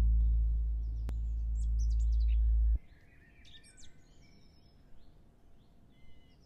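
A loud, deep bass drone closing the intro music, which cuts off suddenly about three seconds in. Faint small birds chirping follow.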